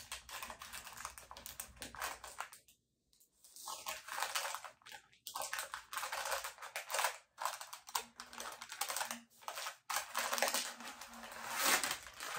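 Packaging rustling and crackling as the coiled power cord and insert are handled and pulled out of the case, broken by brief pauses about three and seven seconds in.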